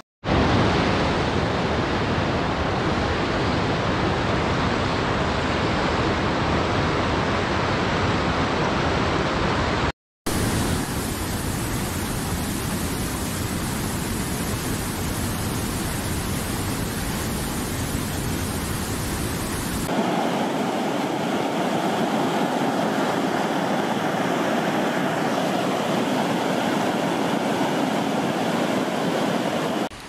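Steady rushing of flowing water over rocks in mountain streams and rapids. It drops out for a moment about ten seconds in, and about twenty seconds in it turns to a brighter splashing with less low rumble, the sound of a small waterfall.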